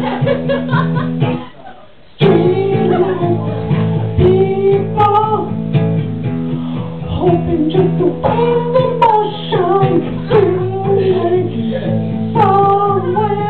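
Acoustic guitar strummed under a man singing a slow ballad into a microphone. Guitar and voice stop briefly about two seconds in, then come back in together.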